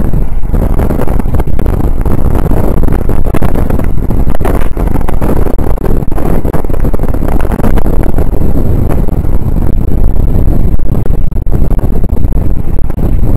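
Wind buffeting the microphone over the steady rumble of a moving vehicle's road and engine noise, loud and heaviest in the low end.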